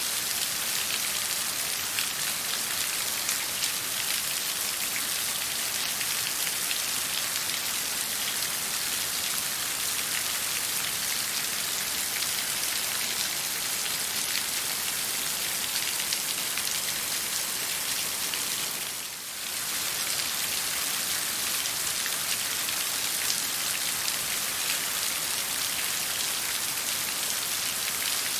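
Steady rain falling on a surface: a dense, even hiss of many small drops. The sound dips briefly about two-thirds of the way through, then carries on as before.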